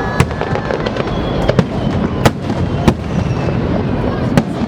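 Fireworks display: shells bursting in a rapid series of sharp bangs, several a second, over steady crowd chatter.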